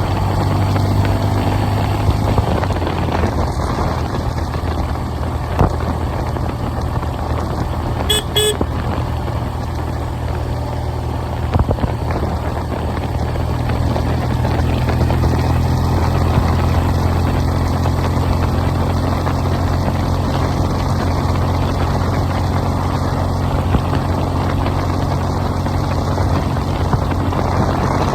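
Motorcycle engine running under way, with heavy wind noise on the microphone. The engine note drops about two seconds in and builds again from about fourteen seconds. A brief high toot sounds about eight seconds in.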